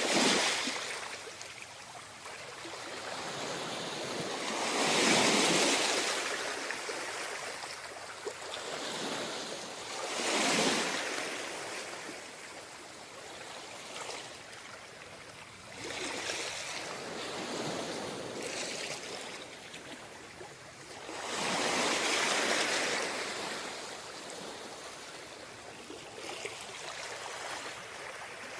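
Sea waves washing onto a beach: a steady rush of surf that swells and fades in slow surges, loudest right at the start and about five, ten and twenty-two seconds in.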